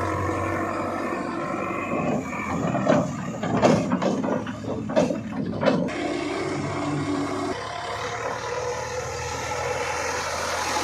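Heavy diesel machinery running steadily, with a flurry of sharp knocks and clanks from about three to six seconds in.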